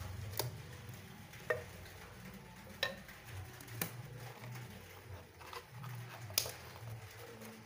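Handling noise as a rubber balloon membrane is stretched over a tin can: about five sharp, scattered clicks and light taps of rubber and fingers against the can, over a low background hum.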